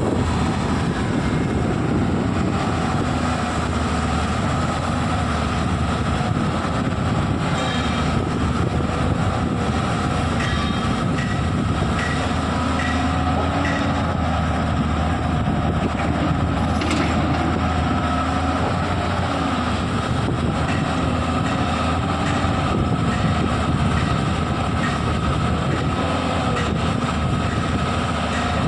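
Tata Hitachi EX210 excavator's diesel engine running steadily, with a steady high whine over its low rumble.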